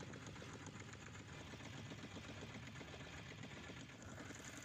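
Faint, steady sound of the fishing boat's engine idling, a low, fast, even pulsing.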